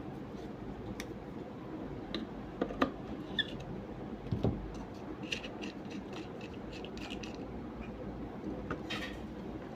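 Irregular light clicks, taps and short scrapes of small parts and tools being handled, over a steady low background hum.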